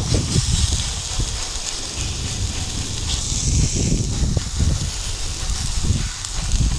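Marinated flank steak searing on a hot propane flat top griddle at about 260 °C: a steady sizzling hiss, under an uneven low rumble.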